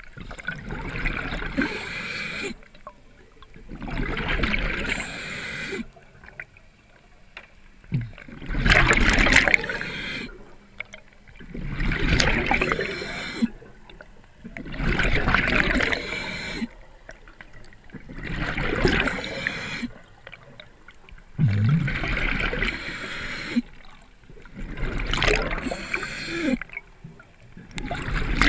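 Scuba diver breathing through a regulator: about eight bursts of exhaled bubbles gurgle out, one every three to four seconds, with quieter gaps between for the inhalations.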